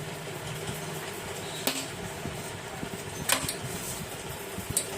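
A screw being tightened by hand into a blower motor's metal cover, with three short sharp clicks of tool and metal over a steady low background hum.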